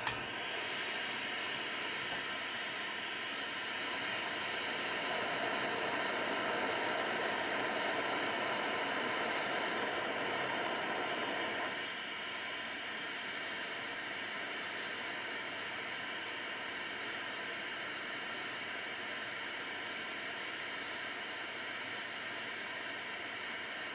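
Steady rushing hiss of a soldering flame heating a metal plate with gold pieces on it until the plate glows red and the solder runs. The hiss swells slightly, then drops a step about halfway through and stays even.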